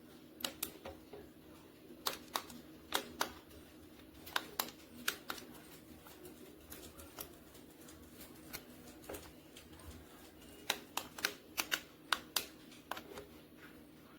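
Irregular light clicks and taps, in uneven clusters, over a faint steady hum.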